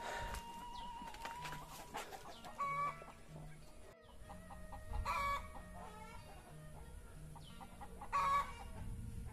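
Domestic chickens clucking, with three louder short calls about two and a half seconds apart.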